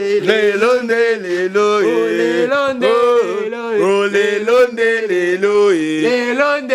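Men singing a chant unaccompanied, with long held notes that step up and down in pitch.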